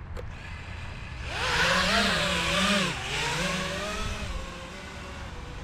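FPV quadcopter's motors and propellers whirring as the throttle is pushed up about a second in, the pitch wavering up and down with the pilot's stick inputs, then easing back to a lower, steady hum.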